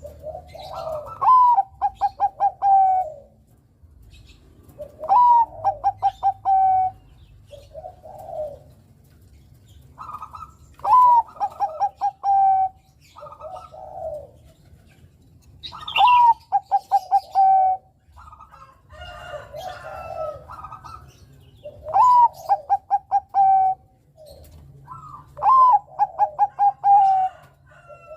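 Bangkok-type zebra dove (perkutut) cooing its song. About six loud phrases come every four to six seconds, each a rising opening note, a quick run of short notes and a held end note, with softer coos in between.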